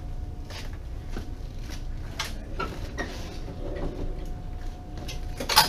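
Portable X-ray machine being rolled across a hospital floor, with scattered clicks and knocks from its frame and a louder clatter near the end.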